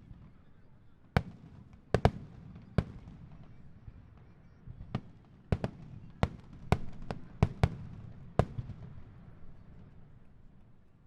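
Starmine firework shells bursting in quick, uneven succession: about a dozen sharp bangs over a low rumble, ending with a last bang a few seconds before the end.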